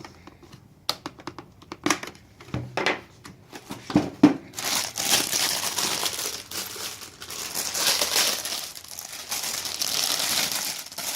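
Sharp plastic clicks and knocks as the helmet's inner visor is worked out of its side mounts, then continuous plastic crinkling and rustling from about four and a half seconds in.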